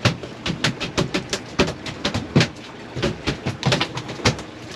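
A rapid, irregular series of sharp knocks and thumps on a boat, several a second.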